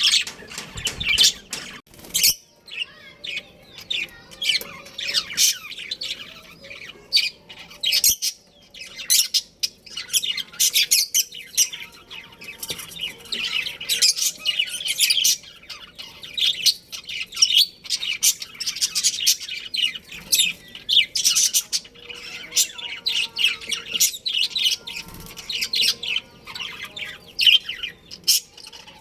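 Budgerigars chirping and chattering continuously: many rapid, short, high-pitched calls overlapping, with a short lull a couple of seconds in.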